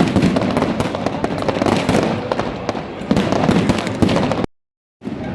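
Diwali fireworks and firecrackers going off thick and fast, a dense loud crackle with many sharp pops. The sound cuts out completely for about half a second near the end, then resumes.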